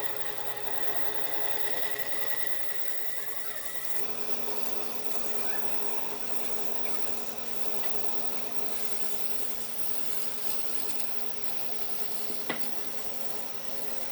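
A power tool's electric motor running steadily. Its tone changes abruptly about four seconds in, and there is one sharp click near the end.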